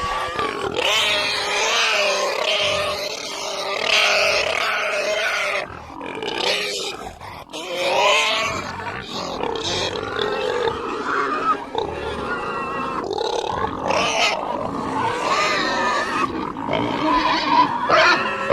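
Pigs squealing and snorting almost without a break: high, wavering squeals over rough snorts and grunts.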